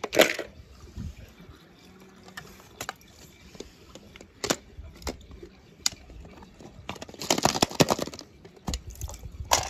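Toy cars in water: scattered clicks and knocks, with a denser run of splashing and clattering about seven to eight seconds in.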